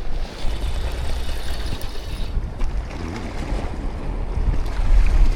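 Wind buffeting the microphone in a low rumble, over the wash of the sea around the rocks.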